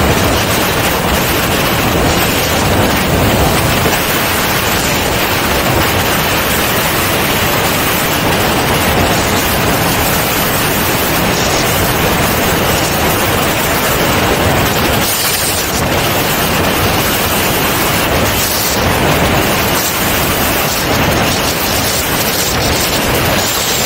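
Steady, loud rush of wind noise from airflow over a camera mounted under the wing of a C42 microlight descending on final approach.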